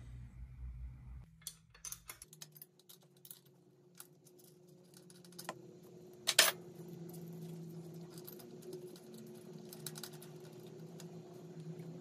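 Scattered light clicks and rattles of gloved hands handling a bicycle cable and small plastic parts at the frame, with one sharper snap about six seconds in, over a faint steady hum.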